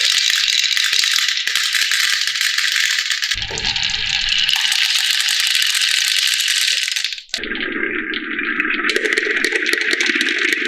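Marbles rattling as they roll down a wooden marble run, a dense steady clatter of small clicks, breaking off abruptly about seven seconds in and starting again with a deeper rumble.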